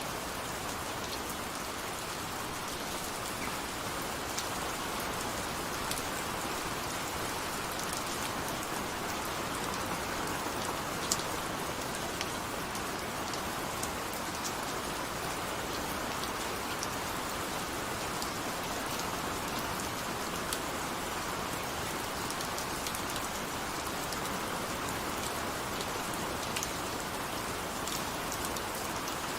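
Steady rain falling on a surface, an even hiss with scattered individual drop ticks throughout.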